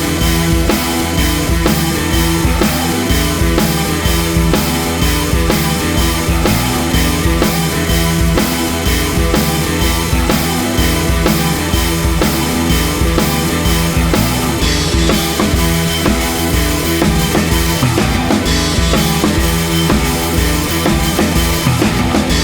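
Background music: a rock track with a steady drum-kit beat and a prominent bass drum.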